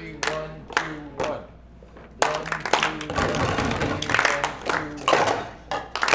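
Group of people clapping their hands in rhythm, with voices singing a tune over the claps. The clapping pauses briefly about two seconds in, then comes back thicker and louder.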